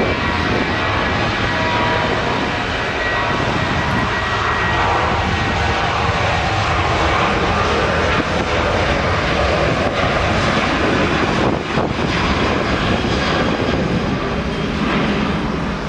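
Boeing 737's twin jet engines at takeoff thrust during the takeoff roll: a loud, continuous roar, with a high whine over it in the first few seconds.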